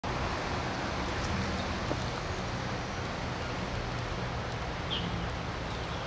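Steady outdoor ambience: a low rumble under a constant hiss, with a short high chirp about five seconds in.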